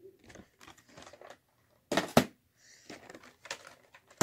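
Crinkling, rustling noises in short scattered bursts, with a louder rustle about two seconds in.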